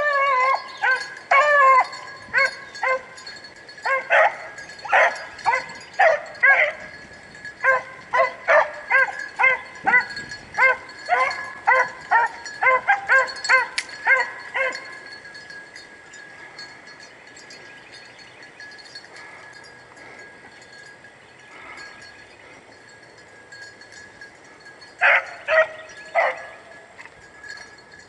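Rabbit-hunting dogs barking and yipping on a chase, a quick string of barks one or two a second that stops about halfway through, then three more barks near the end.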